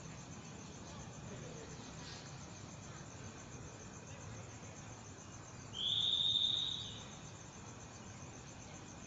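Insects trilling steadily in the background at night, with one loud, high, steady tone lasting about a second, about six seconds in.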